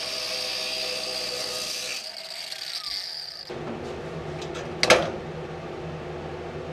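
Angle grinder with a cut-off wheel cutting a slot through the sheet-steel radiator core support, a steady high-pitched whine that stops about three and a half seconds in. After it, a steady low hum, and a single sharp knock a little before five seconds in.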